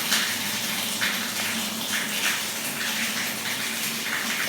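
Steady rushing hiss like running water, with a faint low hum beneath it, holding even throughout.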